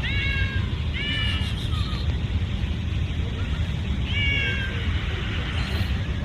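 A cat meowing three times in short calls that rise and then fall in pitch, over a steady low rumble.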